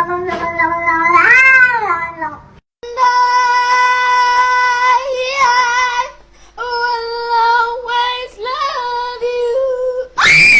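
A cat yowling in a series of long, drawn-out calls, some held level for a few seconds and one rising and falling in pitch, with a short sharp cry near the end.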